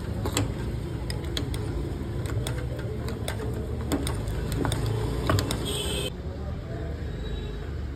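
Metal spoon clinking and scraping against the inside of a tall drinking glass as mango pieces and ice cream are pressed down into it, a scattering of short sharp clicks over a steady low background hum.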